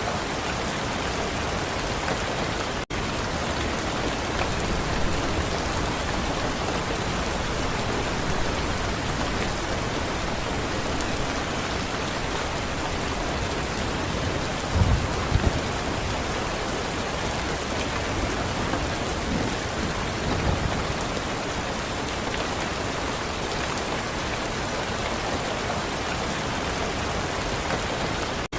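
Steady, heavy rain, a dense even hiss of falling drops, with low thunder rumbling briefly about halfway through and again a few seconds later.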